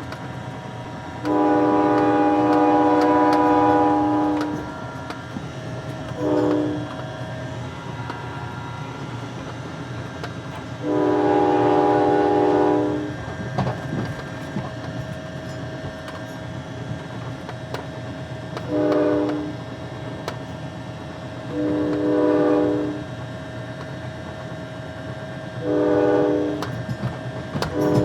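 Amtrak train horn sounding a series of steady chord blasts, long, long, short, long and then several more, the sequence used at grade crossings, over the steady rumble of the passing train.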